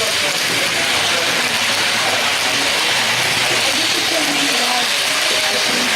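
Indistinct voices of people talking in the background over a steady hiss.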